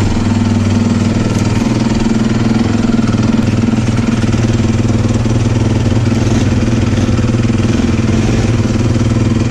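Honda CRF450 dirt bike's single-cylinder four-stroke engine idling steadily.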